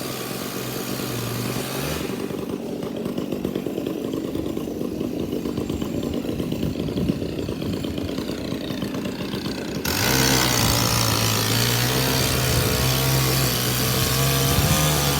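Gasoline chainsaw running at high revs. About two seconds in it drops to a rougher, lower running, then about ten seconds in it revs back up to a steady high whine that climbs slightly.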